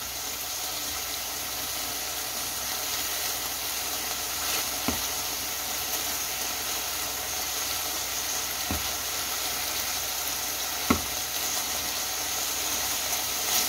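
Pieces of beef chuck flap steak and vegetables sizzling steadily in a hot stainless steel frying pan. The metal tongs turning the meat click against the pan three times, about 5, 9 and 11 seconds in.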